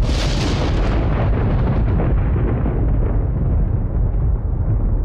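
Thunder: a sharp crack right at the start, then a long, loud low rumble that rolls on.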